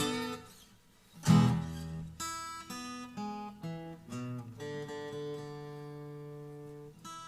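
Acoustic guitar: a brief pause, then a loud strum about a second in, followed by single picked notes ringing out, one held for a couple of seconds near the end.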